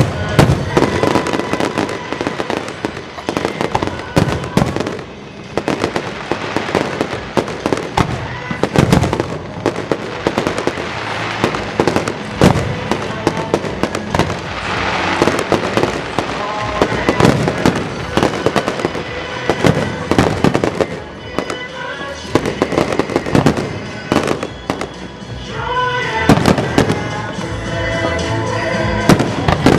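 Aerial fireworks display: shells bursting in rapid, irregular succession with booms and crackling, over music played through loudspeakers.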